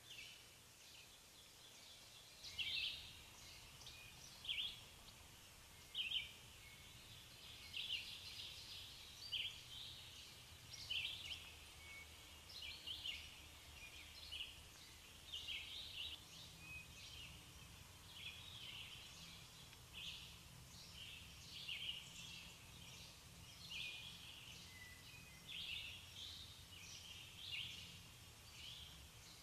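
Small birds chirping in the background, short high chirps coming about once a second, over a faint low steady hum.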